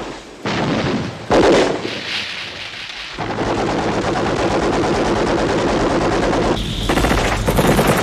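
Film soundtrack of an M60 7.62 mm general-purpose machine gun firing: two loud bursts in the first two seconds, then, from about three seconds in, long sustained automatic fire.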